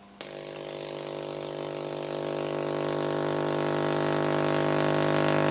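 811A vacuum tube Tesla coil switching on with a click just after the start, then buzzing steadily with a hiss over it, growing louder as its spark lengthens.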